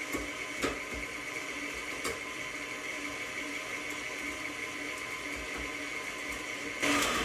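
Stand mixer running steadily with its paddle, creaming peanut butter, shortening and sugar into cookie dough: a steady motor whine with a few light clicks, getting louder near the end.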